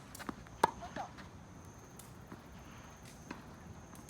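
Tennis ball knocks: a quick run of sharp racket hits and ball bounces in the first second or so, the loudest about two-thirds of a second in, with a couple of short squeaks, then only faint knocks.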